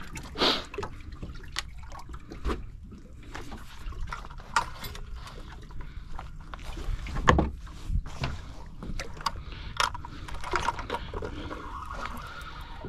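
Small boat sitting on the water, water slapping and sloshing against the hull, with scattered knocks and clatter on the boat, the loudest about seven seconds in.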